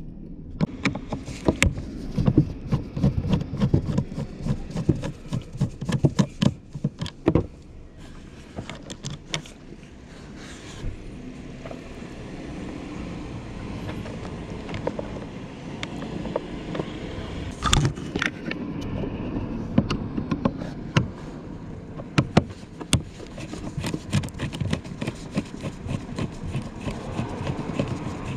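Phillips screwdriver unscrewing the terminal screws of a motorcycle battery: scattered small metallic clicks and scrapes of the tool on the screw heads, with gloved handling noise.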